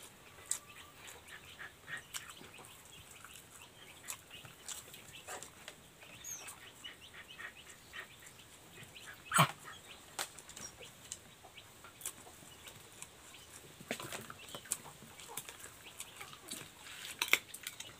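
Close-up eating sounds of pancit noodles eaten by hand: wet chewing and lip smacks throughout, with a loud slurp about nine seconds in and another sharp slurp near the end.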